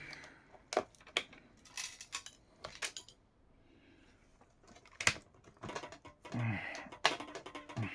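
Sharp irregular clicks and knocks of hard plastic and small tools as a laptop's casing is pried and worked open by hand, with a short quiet pause midway.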